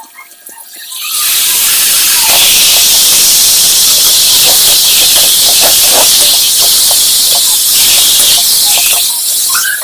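Raw beef chunks sizzling loudly in hot oil and spice paste in a metal wok, the sizzle starting suddenly about a second in as the meat goes in. A metal spatula scrapes and knocks against the wok as the beef is stirred.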